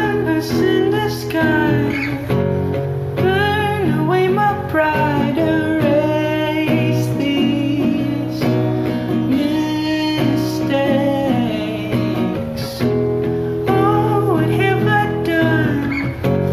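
A song: a voice singing melodic phrases over guitar accompaniment.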